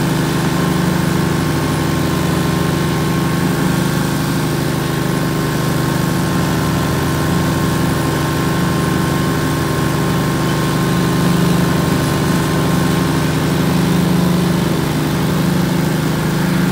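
Kawasaki 23 hp V-twin engine of a 2003 Hustler Shortcut 1500 zero-turn mower running steadily as the mower is driven across the lawn, swelling slightly a couple of times.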